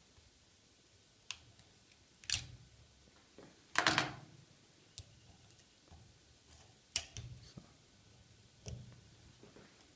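A handful of short, separate clicks and scrapes as fingers work the preload O-rings off a motocross shock absorber's piston, the loudest about four seconds in.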